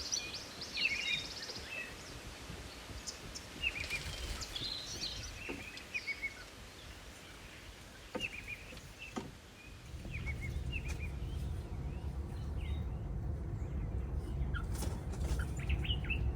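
Small birds chirping and calling in short, repeated notes. About ten seconds in, a low steady rumble joins them.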